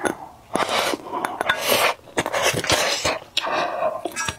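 Close-miked eating of spicy bullfrog from a bowl: wet slurping and sucking in three breathy stretches, with chopsticks clicking against the bowl.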